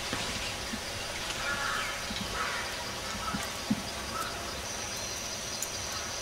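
Outdoor ambience: a steady background hiss with a few faint bird chirps, and a thin high steady whine that begins about three-quarters of the way through.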